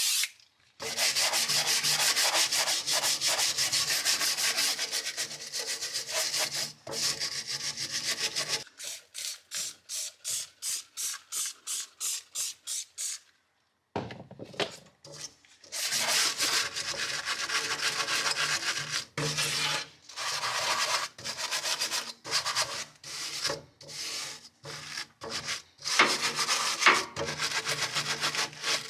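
Scrubbing back and forth on a hard surface, fast at first, then slower separate strokes about two a second. It stops briefly about halfway through, then starts again.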